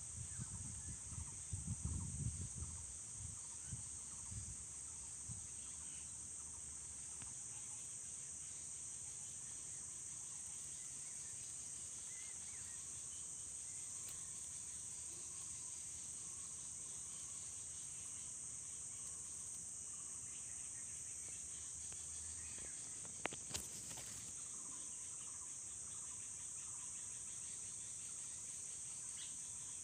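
Steady, high-pitched insect trilling. A few low thumps come in the first few seconds, and a single sharp click about 23 seconds in.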